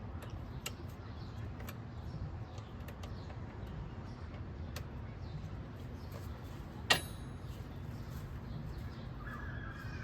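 A few light clicks, then one sharp metallic clink with a short ring about seven seconds in, from tools being handled during a car battery swap. A bird calls briefly near the end.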